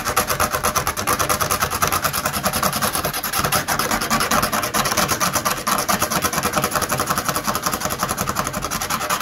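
A razor blade in a holder scraping along the cut edge of a plastic kayak hull in quick, repeated strokes, shaving off the hardened ridge of plastic that melted when the hole was cut with a hot knife.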